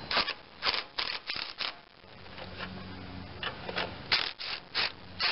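Socket ratchet clicking in short bursts as it is swung back and forth, about a dozen in two runs, while backing out a rusted muffler-bracket bolt that has just come loose.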